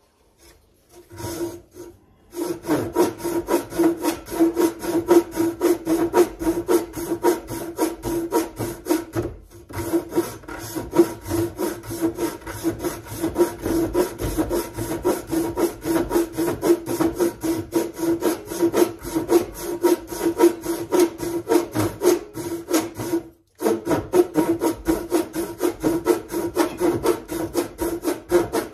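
Hand saw cutting into the top end of a wooden axe handle in quick, even back-and-forth strokes. The sawing starts about two seconds in and stops briefly twice.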